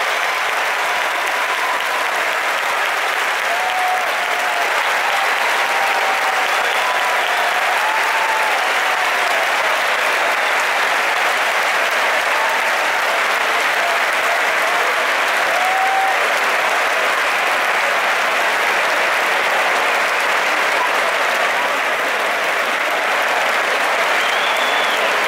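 A huge arena crowd giving a long, steady ovation of applause for a completed castell (human tower), with voices calling out over the clapping.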